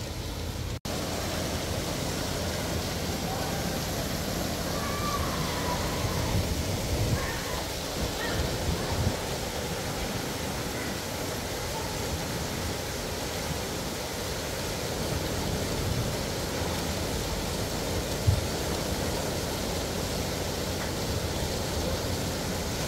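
Steady rushing of running water, with faint voices far off.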